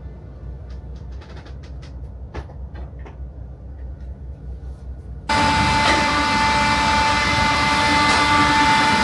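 Low steady hum inside the fastcraft's passenger cabin with a few faint clicks. About five seconds in, this switches suddenly to the loud, steady drone of the moored fastcraft's engines, with a constant high whine over it.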